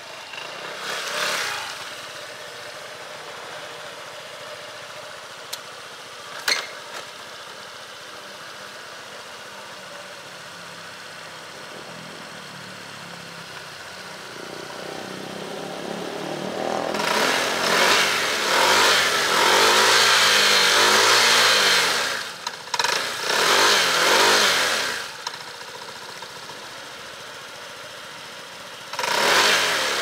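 Honda SH150 scooter's single-cylinder four-stroke engine and exhaust as it rides around. The engine is low for the first half, then grows loud from about halfway, with the pitch rising and falling for several seconds as it comes close. It drops away briefly, and there is another short loud pass near the end.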